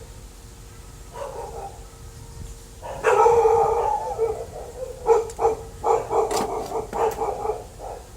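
A dog barking and howling: a drawn-out howl about three seconds in, then a run of short barks.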